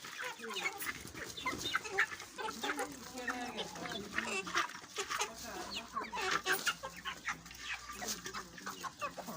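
A flock of chickens clucking and calling, many short overlapping calls throughout.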